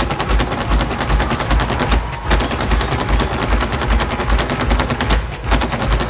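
Flamenco zapateado footwork: dense, very fast stamping of heels and toes on a stage platform, like rapid gunfire, with a regular deep pulse underneath. It breaks briefly twice, about two seconds in and about five seconds in.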